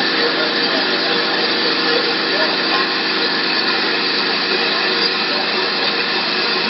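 Mini CNC wood lathe turning a wooden spindle with its two cutters: a steady machine hum with several held tones under the continuous noise of the tools cutting the wood.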